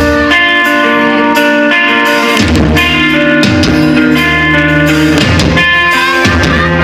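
Live band music from the stage: guitar playing over bass and drums, with no singing. Near the end a note glides up and back down in pitch.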